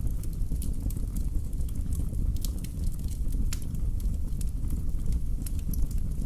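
Wood fire burning in a fireplace, crackling with many small sharp pops over a steady low rumble.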